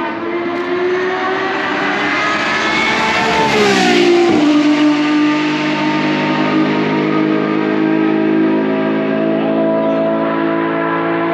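Lamborghini Essenza SCV12's naturally aspirated V12 on the track, very loud. Its revs climb for about three and a half seconds, the pitch drops sharply at the loudest point about four seconds in, and then it runs at a steady pitch.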